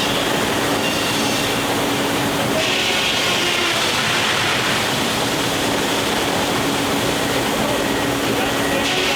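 Steam-powered sawmill running with steady, loud machinery noise and a low steady hum. A high hiss comes and goes a few times over it.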